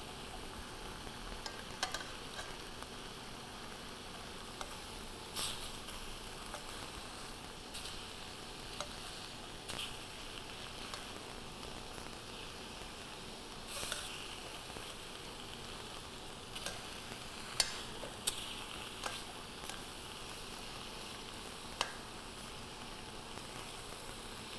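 Tofu pieces frying quietly in a caramelizing sauce in a stainless steel skillet, a steady sizzle, with occasional sharp clicks of metal tongs and spatula against the pan as the pieces are turned.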